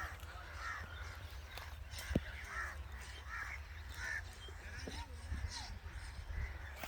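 Crows cawing repeatedly, with one sharp click about two seconds in.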